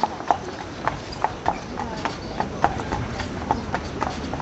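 A carriage horse's shod hooves clip-clopping on pavement at a steady walk, about four hoof strikes a second.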